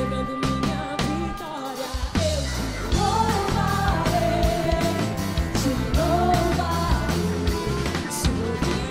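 Live Christian worship band playing: several singers on microphones over guitars, keyboard and drums, the sung melody coming in strongly about three seconds in.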